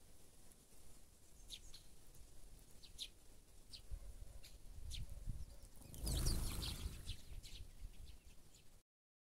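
Sparrows feeding on the ground, giving short scattered chirps. About four seconds in a low rumble swells to a loud noisy burst about six seconds in, and the sound cuts off just before the end.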